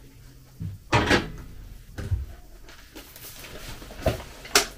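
A few separate knocks and clunks of kitchen objects being handled and set down, the loudest about a second in and again near the end. Near the end a plastic milk bottle is brought to the table and its cap worked open.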